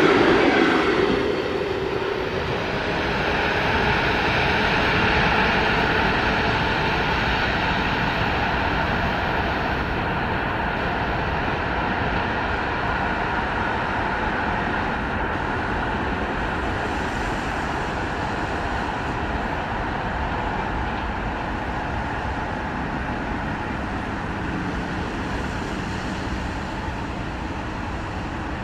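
Train running on the line, loudest at the start and dropping about a second in, then a steady rumble that fades slowly as it moves away.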